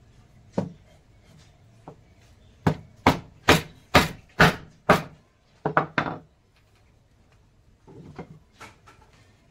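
Hand tool striking wood: a run of six sharp, loud blows about two a second, then a quick pair, with a few softer knocks near the end.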